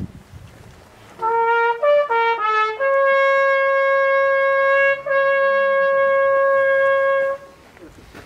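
A trumpet-like horn playing a few short notes that step up and down, then one long held note with a brief break midway, cutting off shortly before the end.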